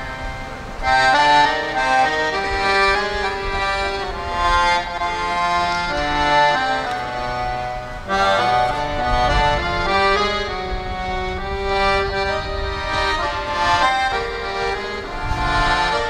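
Piano accordion playing a melody over sustained chords and bass notes, the bellows pushing and pulling. The playing grows louder about a second in and briefly drops back near the middle before carrying on.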